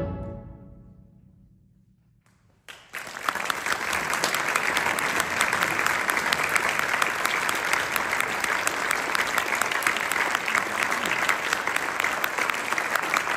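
A concert band's final chord is released and rings away in the hall's reverberation over about two seconds. After a moment of near silence, the audience bursts into steady applause.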